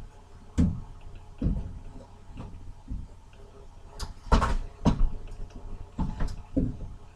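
A series of irregular knocks and thumps, about ten in all, with a louder scuffing clatter about four seconds in.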